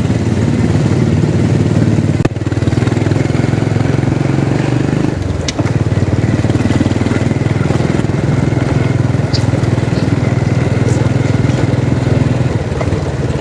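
Small motorcycle-type engine running steadily at low revs, with a low pulsing drone, as the vehicle moves along a street.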